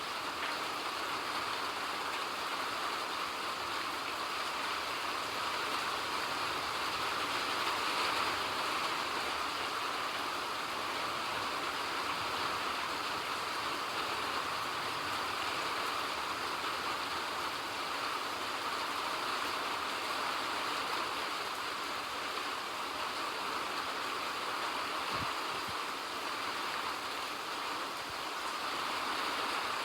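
Steady rain, an even hiss without breaks or lulls.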